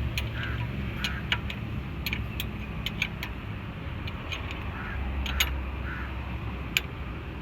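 Spanner being worked on the lower bolt of a front brake caliper to undo it: irregular sharp metallic ticks and clicks over a steady low rumble.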